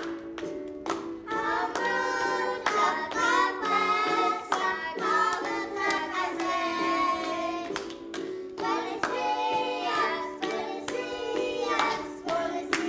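A children's song: singing over steady musical accompaniment, with hand claps keeping time.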